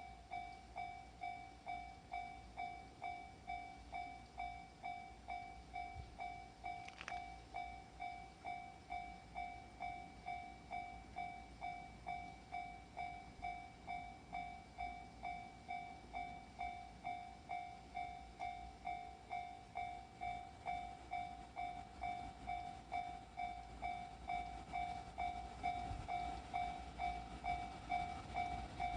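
Japanese level crossing warning bell ringing, an electronic ding repeating about one and a half times a second, signalling an approaching train. It grows louder over the last several seconds.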